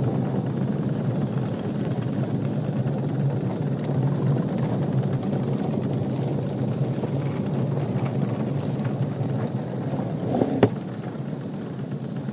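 Gravity-powered luge kart rolling down an asphalt track, its wheels giving a steady rumble. A single sharp knock about ten and a half seconds in.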